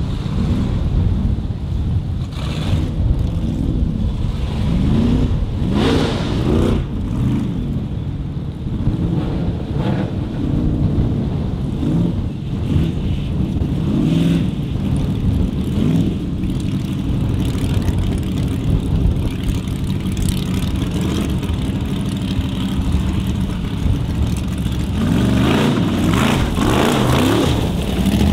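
Formula off-road (torfæra) competition car's engine revving hard over and over, its pitch rising and falling every second or two as it climbs the course, with a louder, harder-pulling stretch near the end.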